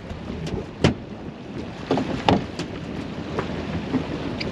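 Wind buffeting the microphone and water washing against a small boat's hull, with a few sharp knocks, the loudest about a second in and two more around two seconds in.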